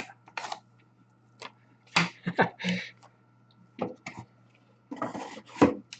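Trading cards and their packaging being handled on a table: short, irregular clicks and rustles, with the busiest stretches about two seconds in and near the end.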